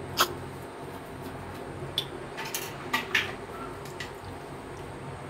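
Several short sharp clicks and taps, the loudest about a quarter second in and a few close together around the middle, over a low steady hum.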